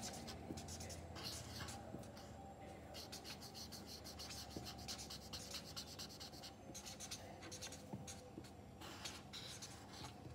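Felt-tip marker nib scratching across paper in runs of quick, short back-and-forth strokes with brief pauses, colouring in small filled areas.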